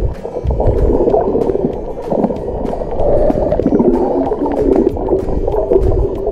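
Muffled water sounds recorded underwater: irregular gurgling and bubbling with scattered faint clicks.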